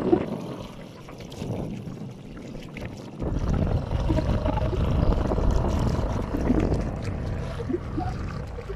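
Wind buffeting the microphone over choppy river water, with a low rumble that grows louder about three seconds in.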